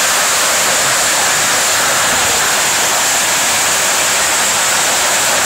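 Heavy storm rain pouring down, a loud, steady wash of noise with no break.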